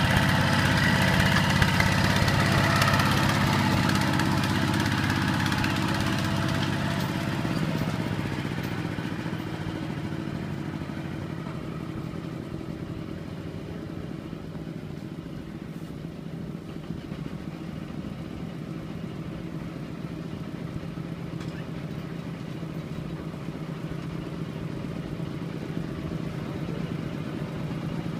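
Kubota RT120 walking tractor's single-cylinder diesel engine running steadily, labouring loudly in the mud at first and then fading to a lower, even level about ten seconds in.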